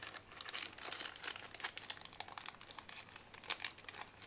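Thin clear plastic bag crinkling and crackling as it is pulled open by hand to free a small part, a rapid, irregular run of crackles throughout.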